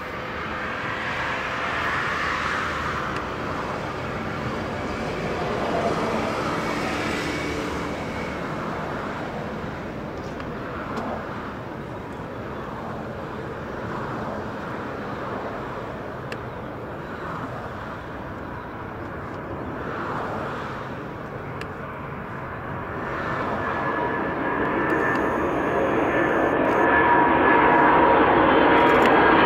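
Four turbofan engines of a Boeing 747-400 freighter on landing approach, a steady jet-engine noise with a faint high tone. It grows louder over the last several seconds as the aircraft comes closer.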